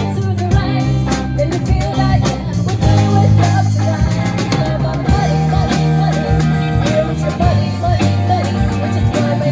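Live band playing a pop song, with guitar, drum kit and a singer.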